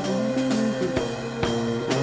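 Music with a steady beat, about two drum strokes a second, under held pitched notes.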